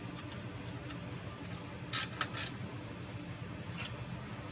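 A screwdriver fastening a plastic bezel onto an MEI bill validator: a few light ticks, then three sharp clicks close together about two seconds in. A steady low hum runs underneath.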